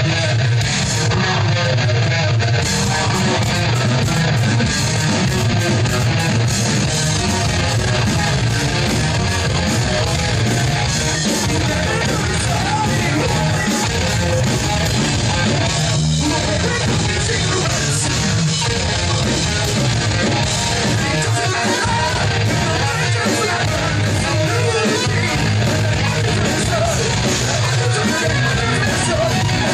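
Live progressive metal band playing loud and continuously, with electric guitars and a singer singing into the microphone.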